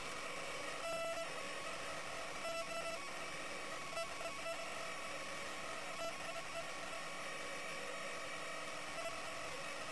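Electronic interference on a camera's audio: a steady hiss with several faint steady tones, broken every second or two by short buzzy, chattering stretches, like radio static.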